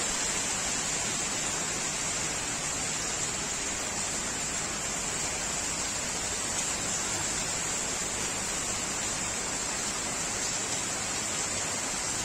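Heavy rain pouring down, a steady, even hiss that doesn't change.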